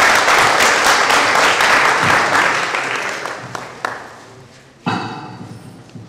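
Audience applauding, loud at first and dying away over about four seconds. About five seconds in there is a brief, sudden sound over the microphone.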